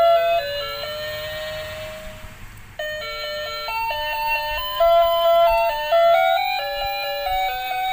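A simple electronic chime melody in the style of an ice-cream-van jingle: clean beeping notes, a single tune with one long held note at first, then several notes at once from about three seconds in.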